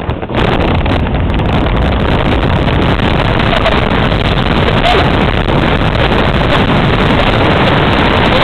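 Steady rushing noise of an inflatable boat sliding fast down a snowy slope: wind buffeting the microphone over the hiss of the hull running on snow. It starts suddenly just after the beginning as the boat gets going, then holds loud and even.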